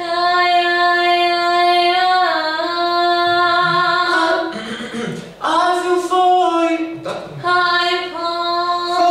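A voice singing long held notes, with a small downward step in pitch about two seconds in and short breaks between phrases about four and a half and seven seconds in.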